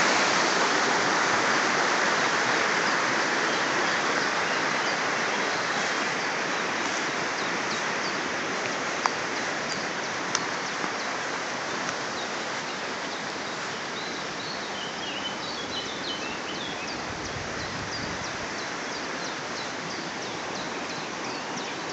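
Wood campfire burning up, a steady rushing hiss of flames that slowly dies down, with a couple of sharp crackling pops from the wood. Birds chirp faintly in the background.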